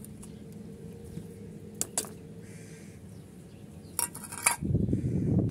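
Metal lid of a paint tin clinking as it is lifted off and handled: a couple of sharp clicks about two seconds in and a quick cluster of clicks about four seconds in. A louder low muffled noise follows near the end.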